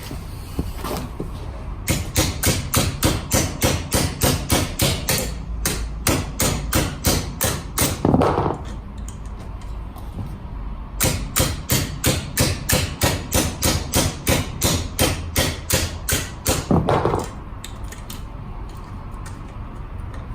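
Hammer blows on the seized rear wheel of a Honda Today scooter, in two runs of quick, even strikes about three a second, with a pause of a couple of seconds between the runs.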